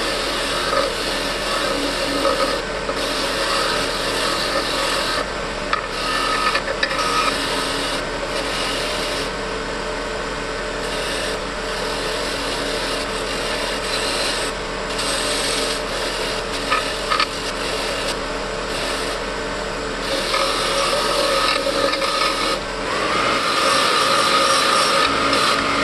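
Abrasive rasping and rubbing on the steel of antique pliers, running continuously with brief irregular breaks. It grows louder and brighter about 23 seconds in.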